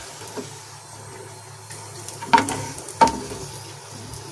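Slivered almonds and ghee sizzling in a pan as they are scooped out with a metal ladle, with two sharp metallic clinks of the ladle, a little over two and three seconds in.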